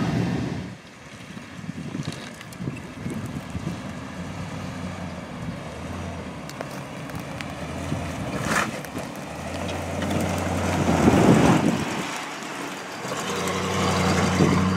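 Chevrolet pickup truck's engine running as it drives through a sandy off-road wash in four-wheel drive, with a steady low hum that swells and grows louder about two-thirds of the way through. A single sharp knock a little past the middle.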